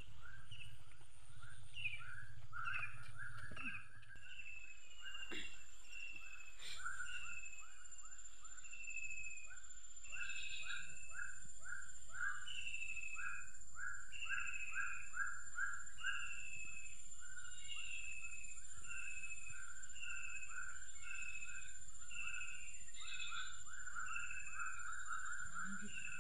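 Outdoor animal chorus: one call repeating about once a second, each a quick rattle followed by a short falling note, with a steady high-pitched tone joining about four seconds in. A couple of faint knocks sound in the first few seconds.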